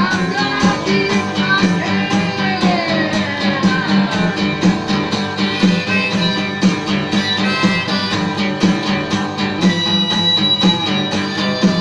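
Upbeat guitar-led music with a steady beat and a sliding melody line in the first few seconds.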